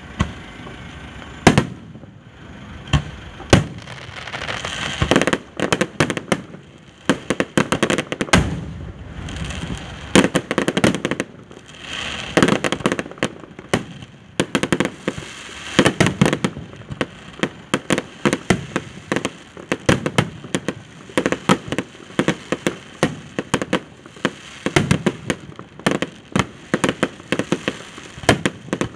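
Fireworks display: aerial shells bursting in a steady, rapid run of sharp bangs mixed with dense crackling.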